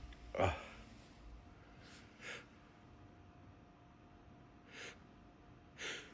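A man's short sharp inhalations, three of them a couple of seconds apart, with a brief voiced sound about half a second in, as a sneeze builds from snorted sneeze powder.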